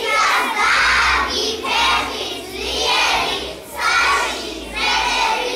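Group of young children singing together in chorus, in short phrases with brief breaks between them.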